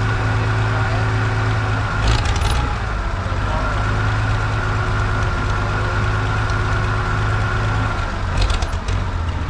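Farmall 560 tractor's six-cylinder gasoline engine idling steadily on its newly fitted electronic-ignition distributor. Short bursts of metallic clinking come twice, about two seconds in and near the end.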